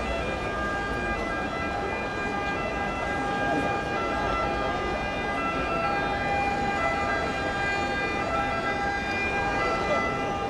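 Murmur of a crowd talking, with a steady high-pitched whine of several held tones over it.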